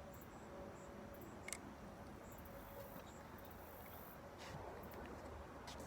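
Faint open-air ambience with insects chirping in short, high-pitched calls, and a couple of light clicks.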